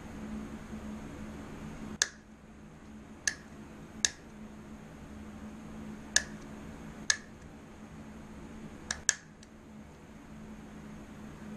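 A hand hole punch snapping shut seven times at uneven intervals, each a sharp click, as it nibbles out a paper intake gasket's port opening to enlarge it to match the engine's intake hole. A steady low hum runs underneath.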